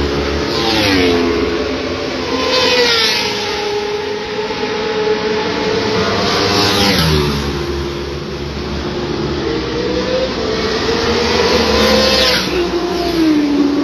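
Racing motorcycle engines at high revs. The engine note holds and then drops sharply in pitch about a second in, again around seven seconds in, and near the end.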